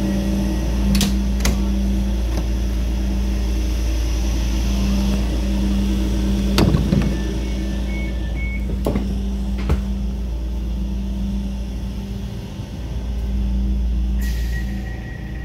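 ÖBB class 4020 electric multiple unit standing in the station, its onboard equipment humming steadily. There are a few sharp knocks, a few short high beeps about halfway through, and near the end a steady high tone sets in as the hiss drops away.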